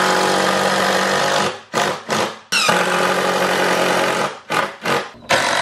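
Cordless impact driver driving screws into 2x4 framing lumber: two long runs of steady hammering buzz, each followed by a few short trigger bursts as the screw seats. It runs strongly on a freshly swapped battery.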